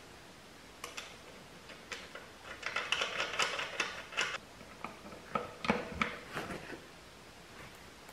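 Metal clicks and clinks of the front axle nut being run onto the threads and tightened with a socket wrench, in two quick runs of clicking with a dull knock between them.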